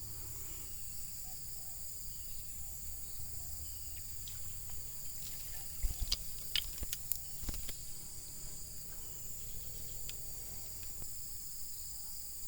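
Steady high-pitched chorus of insects, crickets or cicadas, with a low rumble beneath. A few sharp clicks and knocks come about halfway through.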